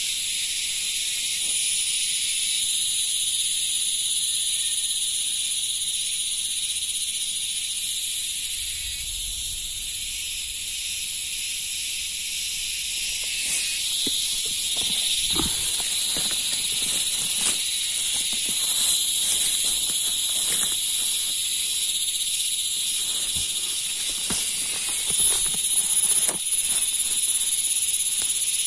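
Dense, steady chorus of forest insects chirring and buzzing. From about halfway through, scattered knocks and rustles of tent stakes and guy line being handled in the grass, loudest near the end.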